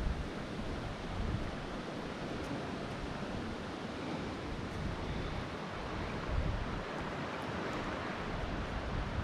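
Shallow river rapids running over rocks, a steady rushing hiss, with wind rumbling on the microphone now and then.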